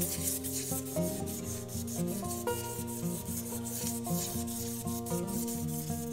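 Strip of 1000-grit wet-or-dry sandpaper rubbed in repeated side-to-side strokes around the metal needle bar and presser bar of a Singer Model 15 sewing machine, scouring off built-up varnish. Background music with a steady beat plays under it.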